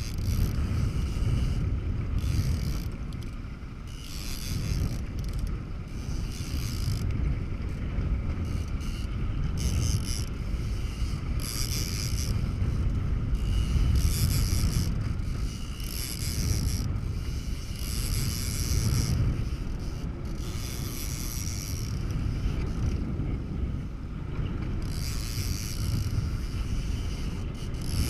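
Wind buffeting the microphone on a moving boat over choppy water, a steady low rumble, with repeated hissing rushes every second or two.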